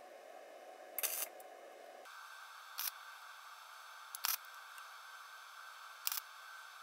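MIG welder (Hitbox SYN-MIG200PRO) stitch-welding thin sheet metal: four short bursts of the arc, each a fraction of a second, over a faint steady hiss. The welds are laid in separate spots so the thin workpiece can cool between them.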